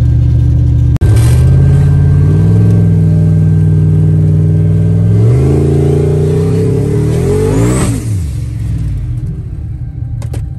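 Turbocharged Chevrolet truck engine heard from inside the cab, pulling hard under heavy throttle with its pitch climbing in stages. About eight seconds in the throttle lifts and the engine falls back to a lower cruising rumble.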